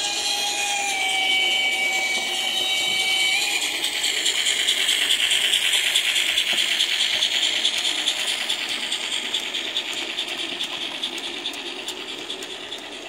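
Model steam locomotive and coaches running along layout track. A motor whine with a few steady tones steps down in pitch twice in the first few seconds, then gives way to a steady rattle of wheels on the track that fades near the end as the train moves away.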